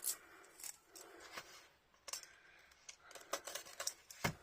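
Scissors clicking and snipping at sealed packaging on a small art-supply set: faint, irregular clicks with a sharper knock near the end.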